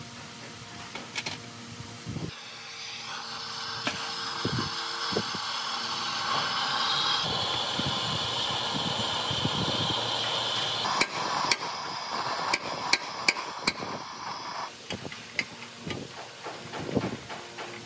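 Hands-on metal restoration work: a steady hissing noise that builds up and then cuts off about 15 s in, with a run of sharp hammer strikes from about 11 s and lighter taps after it.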